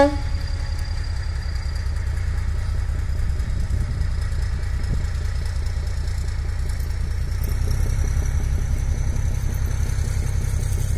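Kangra Valley Railway narrow-gauge diesel passenger train running past at a distance: a steady low engine and wheel rumble, with a faint high whine that slowly rises in pitch over the second half.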